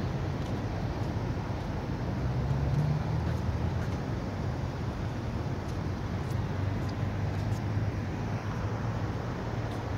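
Steady low rumble of road traffic, swelling a little about two to three seconds in.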